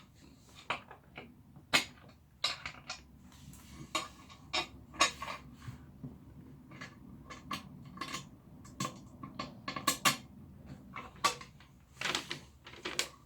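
Irregular clicks, taps and knocks of chair parts, bolts and washers being handled and fitted during assembly.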